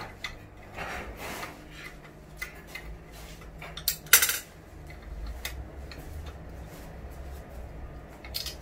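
Metal 45-degree tile chamfering guide for an angle grinder being handled and taken apart by hand: metal parts clinking and knocking against each other, with one sharp clank about four seconds in.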